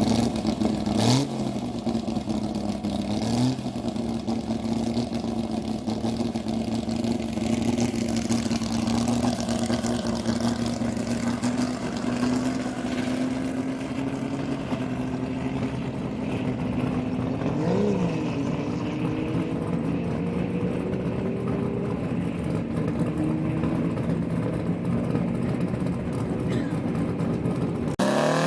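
Engine of a land-speed racing vehicle running steadily at nearly constant pitch, with brief pitch blips about a second in and again near the middle.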